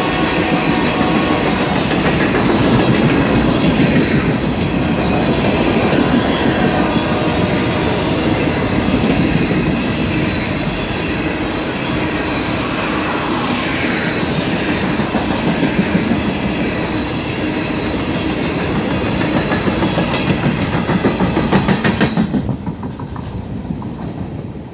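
Ballast train's freight cars rolling past: a steady rumble and clickety-clack of steel wheels over the rail joints. The last car goes by about 22 seconds in and the sound falls away sharply.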